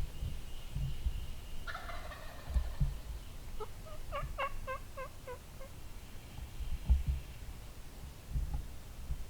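Wild turkey gobbler gobbling: a rapid rattling run of notes about four seconds in, with a shorter call just before it. Low thumps of handling or wind on the microphone sound underneath.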